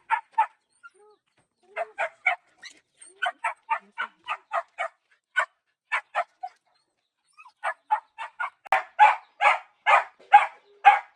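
A dog barking in quick runs of short barks, pausing twice and getting louder near the end.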